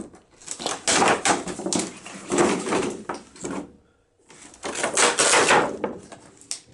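Cardboard box and clear plastic packaging being handled and slid apart as a toy is unboxed: two long stretches of rustling and scraping, the second starting after a short pause about four seconds in.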